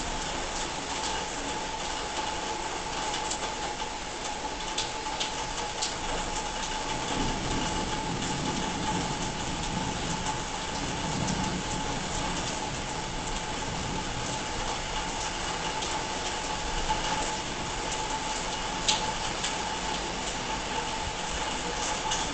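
A steady rushing noise with a constant high hum running through it, a low rumble swelling in the middle, and a few faint clicks.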